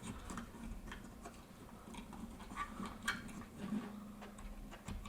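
Faint, scattered small plastic clicks and taps of a four-pin female plug being worked onto an LCD's header pins by hand.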